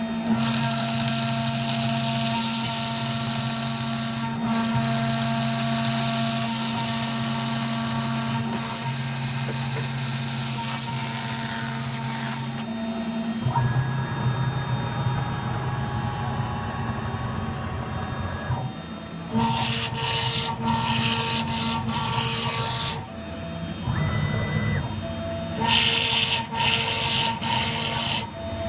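Small milling machine running with a steady, high-pitched spindle whine and cutter noise as it mills thin gauge face plates to shape. The cutting noise is continuous for the first dozen seconds, drops to a quieter running hum, then returns in several short stop-start stretches near the end.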